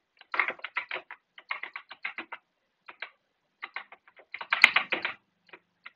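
Computer keyboard typing: quick runs of keystroke clicks with short pauses between them, the densest and loudest run about four and a half seconds in.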